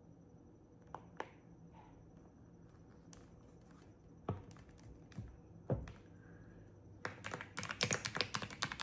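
Clicky wireless keyboard: a handful of separate key presses over the first six seconds, the button that changes the light pattern being pressed, then fast, continuous typing from about seven seconds in.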